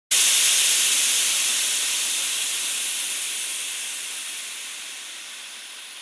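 Steam hissing, starting abruptly and fading steadily away.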